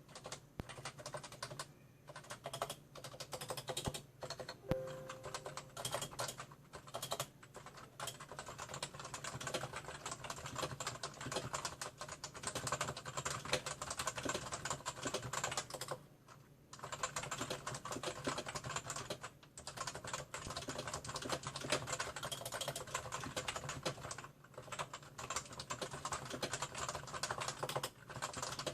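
Fast, continuous typing on a Topre Type Heaven keyboard, its rubber-dome electrostatic capacitive switches unlubricated and stock, with a couple of short pauses along the way.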